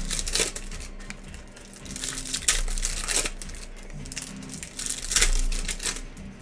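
Foil trading-card pack wrappers crinkling and tearing as packs are opened and handled, in several separate bursts.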